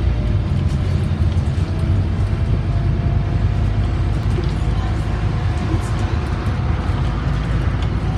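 A Scania OmniCity bus's diesel engine and running gear, heard from inside the passenger cabin while the bus is under way. It makes a steady low drone over road noise. A faint whine rises slowly in pitch through the second half as the bus picks up speed.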